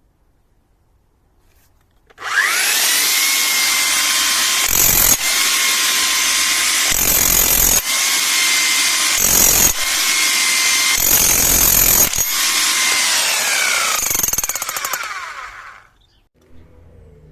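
Hilti TE 76-ATC rotary hammer test-run after servicing: its electric motor starts about two seconds in with a rising whine, runs steadily at a high pitch with a few short spells of heavier low-pitched noise, then winds down with falling pitch near the end.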